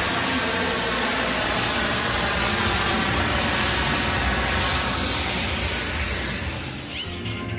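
Artificial snow machine jetting a plume of mist: a loud, steady hiss that dies away near the end.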